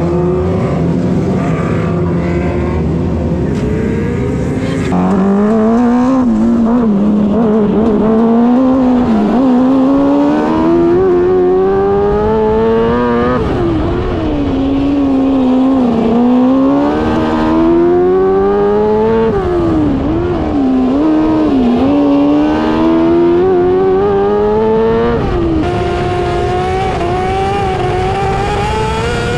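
600cc micro sprint's motorcycle engine at racing speed, revving hard. Its pitch climbs for several seconds, then drops sharply as the throttle comes off, over and over. The first few seconds are lower and steadier, then it gets louder and the climbs begin.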